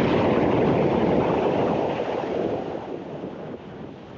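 Ocean swell washing over the rock ledge, a loud rush of surf and foam that fades away from about halfway through as the water drains off.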